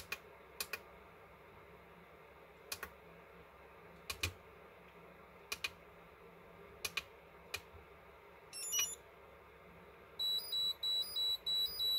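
Push-buttons on a hobby LiPo balance charger clicking, about seven separate presses as its menu is stepped through, followed by a brief electronic chirp and then a quick run of about eight high beeps near the end.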